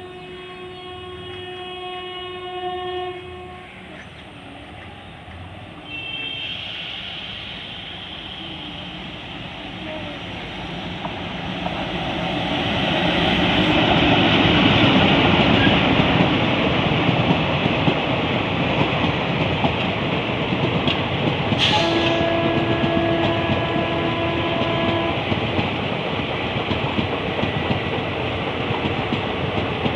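WDM-3D ALCO diesel-electric locomotive passing with its horn blaring: one long blast at the start, a short higher toot about six seconds in, and another blast of about three seconds around twenty-two seconds in. Between and after the horn blasts the engine and the train's wheels on the rails build to a loud rumble at the closest pass, then a steady passing clatter.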